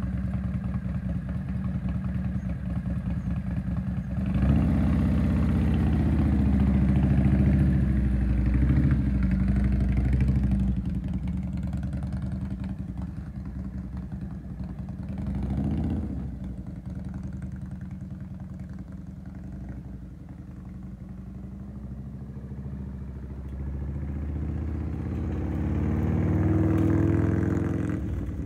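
1990 Harley-Davidson FLH's Evolution V-twin idling, then revving up as the bike pulls away about four seconds in. It fades as the bike rides off, swells briefly midway, and grows louder again near the end as it comes back.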